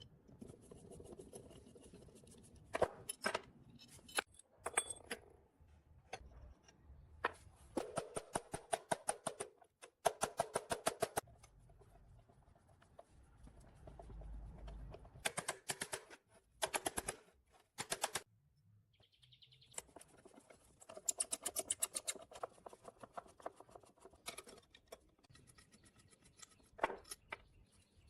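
Repeated bursts of rapid metallic clicking and clatter from hand tools working on the tractor. There are short runs of quick clicks with quieter pauses between them.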